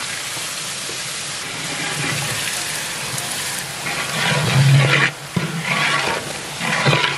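Lemon juice and curd poured into hot oily onion-tomato masala in a large metal cooking pot, setting off a steady loud sizzle. From about four seconds in, a long metal ladle stirs the pot, and the sizzle turns uneven with scrapes and knocks against the pot.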